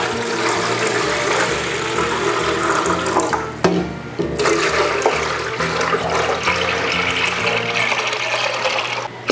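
Water pouring and splashing into a plastic aquarium tank onto the submerged bottom-filter box, filling it. The pour breaks off for a moment a few seconds in, then resumes; soft background music underneath.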